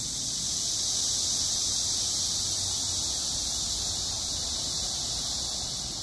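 A chorus of cicadas making a steady, high-pitched, shrill buzz that holds without a break.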